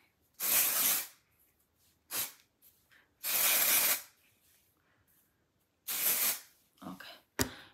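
Aerosol dry shampoo sprayed onto the hair roots in several short hissing bursts, four main ones each under a second, with a sharp click near the end.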